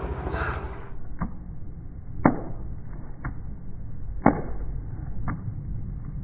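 Five sharp knocks, about one a second, the second and fourth loudest, over a steady low rumble of wind on the microphone.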